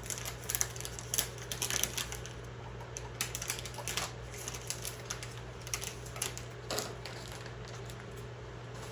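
Irregular light clicks and taps of a circuit board and small hardware being handled and fitted, thickest in the first half, over a steady low hum.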